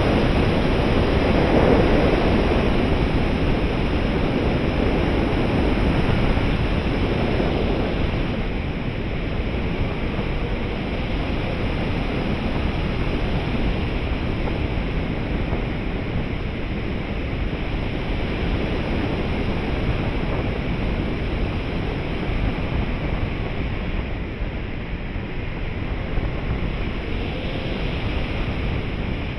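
Airflow rushing over the onboard camera of a 3.6 m RC glider in flight: a steady wind rush, somewhat louder in the first several seconds, with no motor running.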